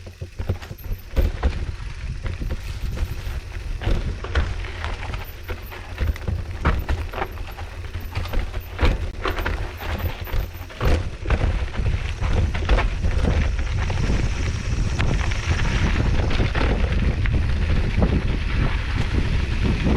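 Mountain bike riding a dirt trail: wind buffeting the microphone, with many sharp clicks and rattles from the bike over rough ground. From about halfway the wind rush becomes louder and steadier as speed picks up.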